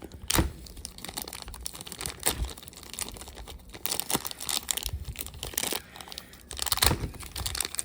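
Toy packaging being torn open and crinkled by hand: irregular rustling and crackling with sharper snaps about half a second in and again near the end.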